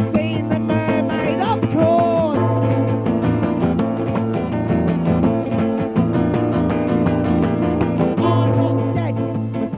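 A band's studio recording of a song with guitar and keyboard playing together, steady and loud.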